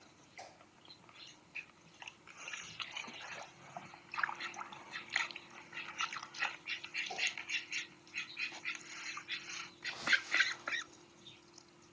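Domestic duck dabbling, its bill working rapidly in shallow water: a fast, uneven run of wet clicks and slurps that builds from about two seconds in, peaks about ten seconds in, and stops shortly before the end.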